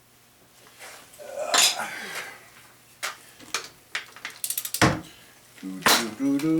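Metal hand tools and engine parts clinking and knocking together as they are handled, with a quick run of small clicks and then a heavier thump about five seconds in.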